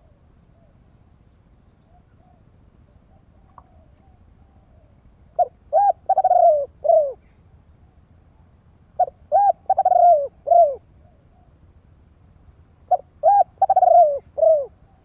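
Spotted dove cooing, three phrases a few seconds apart, each a quick run of four or five arched coos.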